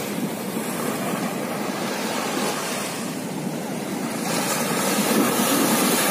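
Sea waves washing onto the beach: a steady rushing surf that swells louder about four seconds in.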